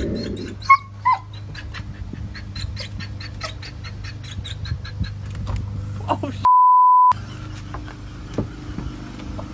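A dog gives two short high whimpers about a second in, over a steady electrical hum and a run of light clicks. Past the middle, a single pure beep lasts about half a second with all other sound cut out, like a censor bleep.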